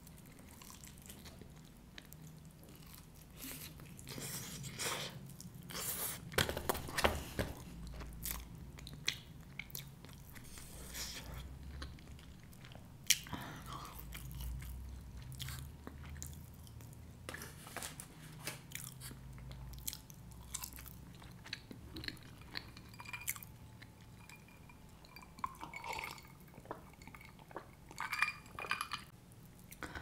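Close-miked chewing and biting of pizza, fries and fried chicken, with irregular crunches and a faint steady low hum underneath.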